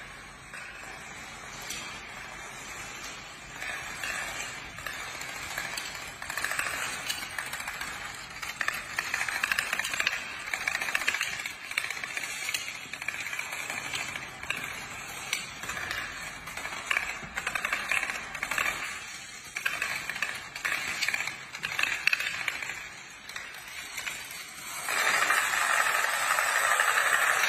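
Long chains of dominoes toppling on a stone tile floor: a dense, continuous clatter of tiny clicks. It grows louder about 25 seconds in as a large block falls all at once.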